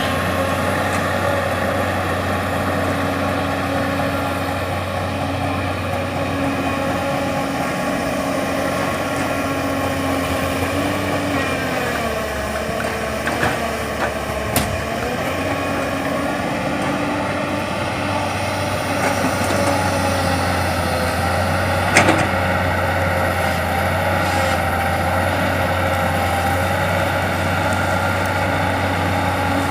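Heavy diesel engines of an excavator and dump truck running steadily during loading, the engine note dipping and rising again under load partway through. A few knocks, the sharpest about 22 seconds in.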